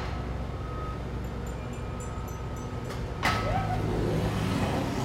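A steady low hum, with a sudden hit a little over three seconds in followed by a brief sliding tone; after the hit the hum is louder.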